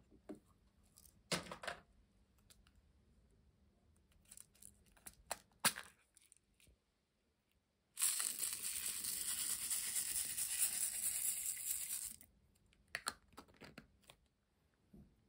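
Slime being handled with small sticky clicks and pops, then, about eight seconds in, a sudden dense crackling fizz lasting about four seconds as a bubbly clear slime mixture is poured from a plastic cup over the glitter slimes.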